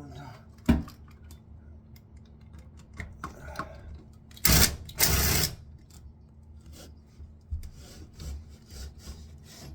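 A tool working at a rusted toilet closet bolt: a sharp knock about a second in, light scattered clicks, then two short loud rasping bursts, the second a little longer, midway through.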